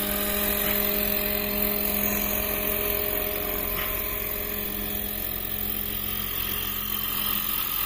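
Roban 800-size Airwolf scale RC helicopter in flight, its battery-powered drive and main rotor running with a steady whine of several held tones over the rotor's noise.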